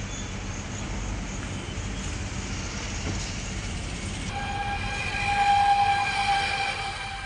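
A steady low rumble, then a horn-like tone of one pitch starts about four seconds in, swells to its loudest and fades near the end.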